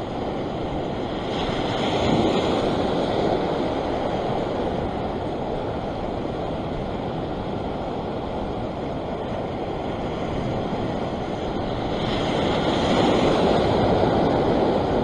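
Ocean waves breaking and washing over a rock ledge, a steady rushing surf that swells about two seconds in and again near the end.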